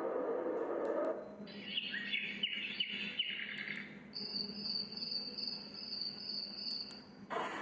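A portable sound machine switching between its built-in nature soundtracks. A frog chorus cuts off about a second in, followed by a couple of seconds of chirping birdsong, then a steady, evenly pulsing high cricket trill. Near the end it switches abruptly to a wide hiss.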